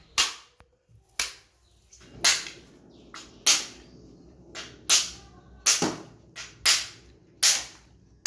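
Coconut being chopped open: about ten sharp hacking strikes at an irregular pace of roughly one a second, each a short crack that dies away quickly.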